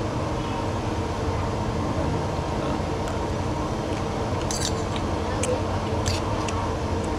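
Eating utensils clicking a few times against a dish over a steady background hum. The clicks come in the second half.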